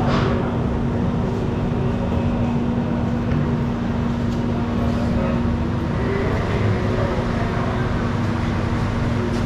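Large electric ventilation fan running steadily: a constant droning hum with one steady low tone through it.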